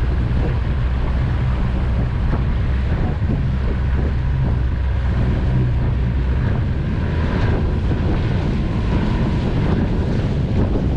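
Outboard motor of a small fishing boat running steadily at speed, a low drone, with wind buffeting the microphone and water rushing past the hull.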